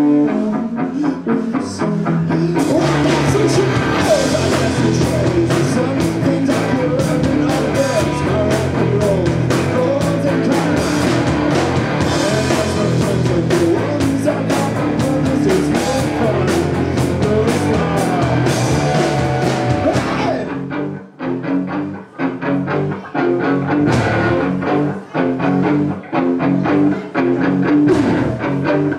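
Live rock band playing electric guitar, bass and drums, loud and dense. About twenty seconds in it drops to a sparser stop-start section of short, choppy hits.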